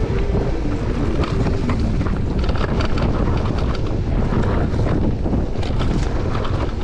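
Wind buffeting the microphone of a handlebar camera on a mountain bike ridden fast down a dirt forest trail, over the steady rumble of tyres on the ground. Bursts of clicks and rattles come from the bike over bumps in the middle of the stretch.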